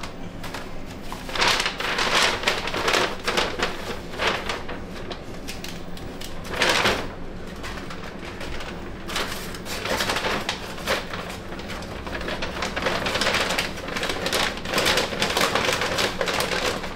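Kitchen work in a snack-bar kitchen: irregular bouts of clattering and rustling as utensils, dishes and containers are handled. The loudest bouts come about two seconds in and again near seven seconds.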